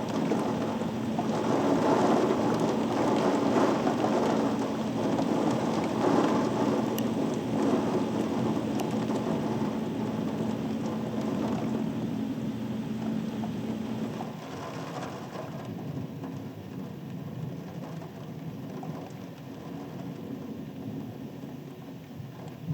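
Steady heavy rain falling on surfaces during a thunderstorm, with swells of thunder rumble in the first half. A steady low hum runs underneath and stops abruptly about two-thirds of the way through, after which the rain sounds lighter.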